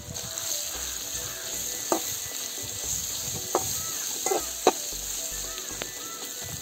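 Chopped capsicum and onions sizzling in hot oil in a steel kadai, stirred with a metal spatula that clinks and scrapes against the pan a few times.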